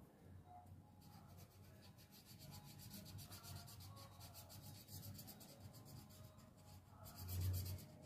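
Faint scratching of brown colour being scribbled onto paper on a clipboard, in rapid repeated strokes. A soft low bump comes near the end.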